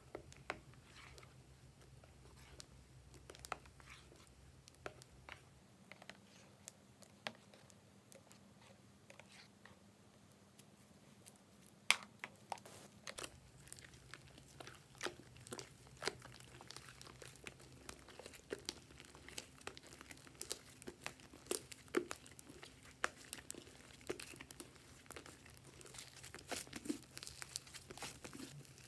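Thick slime being stirred in a glass dish with a small stick, then lifted and stretched by hand: faint, irregular sticky clicks and crackles, coming more often in the second half.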